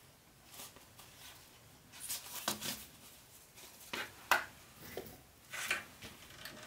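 Quiet, scattered handling noises: vinyl and fabric pouch pieces rustling, scuffing and tapping against a sewing table, with a few sharp clicks, the sharpest about four seconds in.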